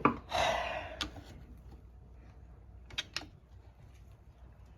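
A short scraping rasp, then a few sharp metallic clicks about a second in and again around three seconds: tools working at the half-split crankcase of a Kawasaki KX85 engine as it is pried apart.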